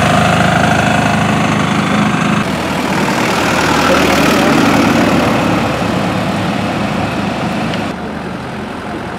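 Truck engines running as lorries drive past, a steady low engine hum with road noise. The sound changes abruptly about two seconds in and gets quieter near the end.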